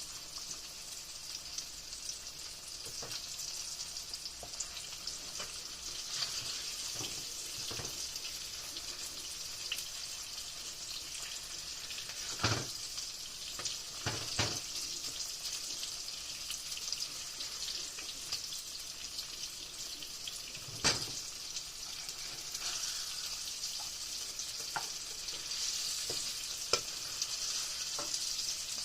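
Green tomato slices frying in hot oil in a pan: a steady sizzle with spitting crackles, broken by a few louder knocks, such as a spatula against the pan.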